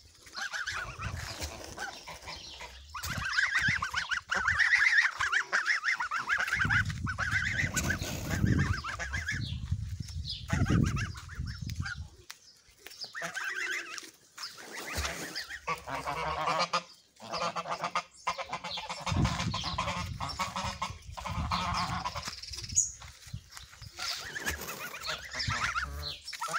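Domestic geese honking over and over, with other farmyard fowl calling around them; low rumbling sounds come and go underneath.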